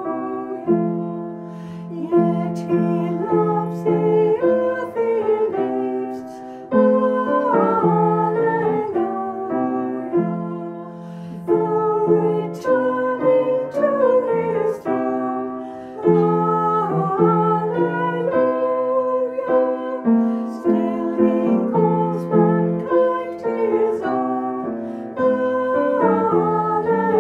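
Two women singing a hymn together over keyboard accompaniment, the melody moving in slow, sustained phrases over held chords.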